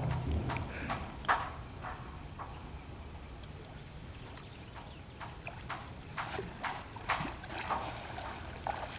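Irregular splashes and knocks of a hooked carp thrashing at the water's surface as it is brought to the landing net. The knocks come more thickly near the end.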